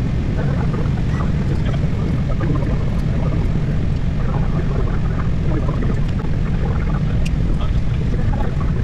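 Airbus A320 cockpit noise while taxiing along the runway: a steady low rumble with faint scattered snatches of sound above it.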